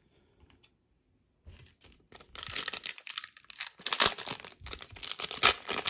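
Near silence for about two seconds, then a dense run of crinkling and crackling from the foil wrapper of a 2022 Donruss Optic football card pack being handled.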